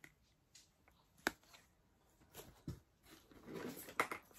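Quiet handling sounds of plush toys being taken out of a cardboard box: faint rustling and a few light clicks and knocks, the sharpest about a second in and again near the end.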